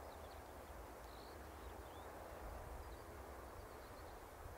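Faint rural outdoor ambience: a steady low rumble with a few faint, short bird chirps scattered through it.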